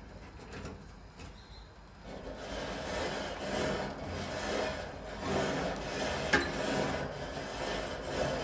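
Long-handled wire grill brush scrubbing the metal grates of a hot gas grill, a rhythmic scraping and rasping that starts about two seconds in, with one sharper clack a little past six seconds. The grill has just been burned clean at high heat and the brush is scouring off the loosened residue.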